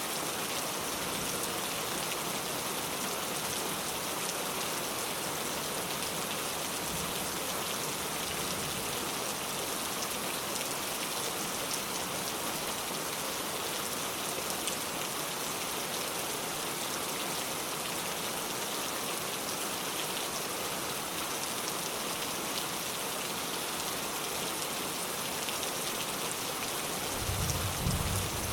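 Steady rain falling and pattering on surfaces. Near the end a low rumble of distant thunder rises.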